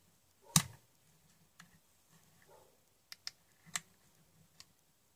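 Thin metal strip prying at a power bank's plastic casing: a loud sharp click about half a second in, then several lighter clicks and taps.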